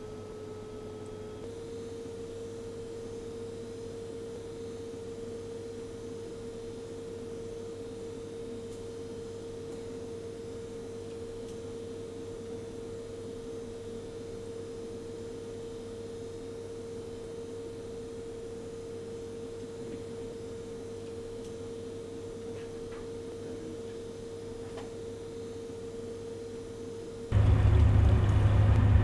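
Steady electronic tone from observatory instruments with a low hum beneath. About a second and a half in, a fainter higher tone drops out and the main tone steps slightly up. Near the end it cuts abruptly to loud wind rumbling on the microphone.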